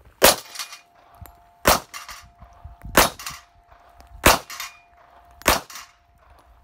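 Five pistol shots from a .45 ACP 1911, about one every 1.3 seconds, each followed by the ring of a hit steel plate target.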